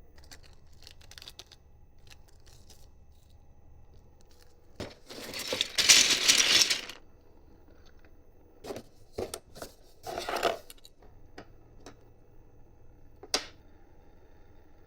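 Handling noises from hand assembly of printer hardware: scattered small clicks of parts, a loud rough noise lasting about two seconds near the middle, and a shorter one a few seconds later.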